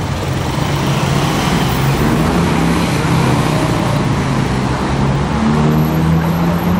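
City road traffic: cars driving through a busy junction, a steady mix of engine and tyre noise. About five seconds in, one engine note climbs in pitch as a vehicle speeds up.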